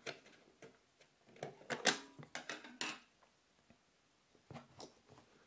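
Battery compartment cover of a wooden watch winder box being pried and popped open: a cluster of sharp clicks and knocks in the middle, then two more knocks near the end.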